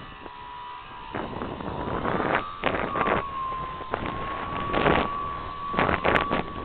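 A small RC parkflyer airplane's motor and propeller whining at a steady pitch that rises a little about two seconds in and then settles back, while gusts of wind hit the microphone several times.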